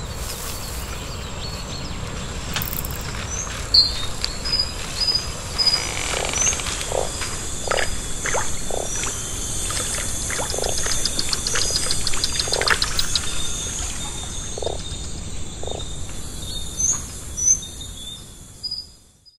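Night forest-and-pond nature ambience: a steady hiss of background noise with short high bird chirps scattered through, a rapid even ticking insect trill about ten seconds in, and a string of short low calls from about six to sixteen seconds. It fades out at the end.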